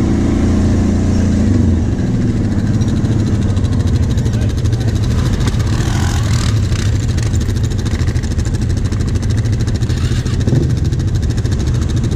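Quad (ATV) engine running under way, pulling harder for the first couple of seconds and then easing off to a steady lower drone.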